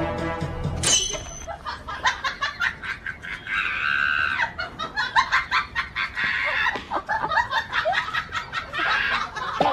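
Chickens squawking and cackling in alarm at a dog, in quick repeated calls. Music ends about a second in.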